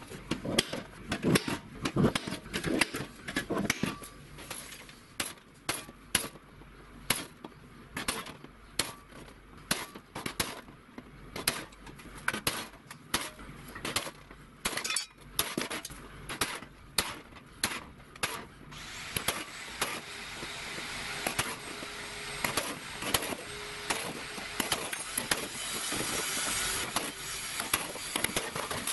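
An automatic spring-loaded center punch snapping against sheet metal, sharp clicks about two a second, dotting along a marked-out line. About two-thirds of the way through, the clicks thin out and a steady scratching begins: a scriber being drawn along the sheet to score the outline.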